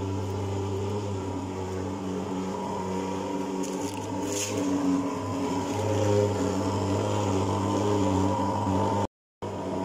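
Portable thermal fogging machine running with a steady engine drone while blowing insecticide fog. The sound cuts out for a moment near the end.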